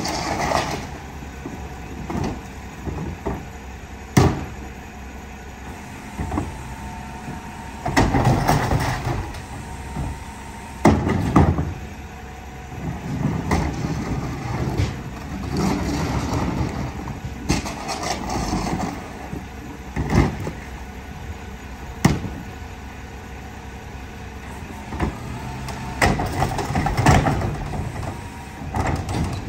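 A Mack garbage truck with a McNeilus rear loader running while the hopper is loaded and packed, its engine and hydraulics working steadily. Several sharp bangs come at irregular moments, with swells of noise between them.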